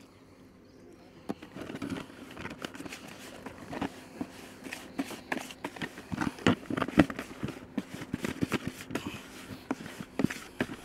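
Damp fishing groundbait being mixed by hand in a metal bucket: an irregular crackling and rustling of crumbly feed squeezed and turned between the fingers. It starts about a second in and is loudest around the middle.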